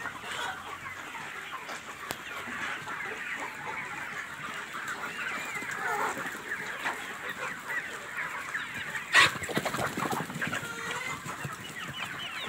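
A large flock of desi (native Indian) hens clucking and chattering continuously, many birds calling over one another. A single sharp knock cuts through about nine seconds in.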